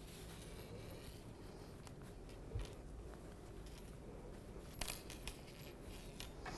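Faint rustling and rubbing of plush fabric being handled as a sewn teddy bear is turned right side out, its paws and legs pulled through, with a few light clicks about two and a half and five seconds in.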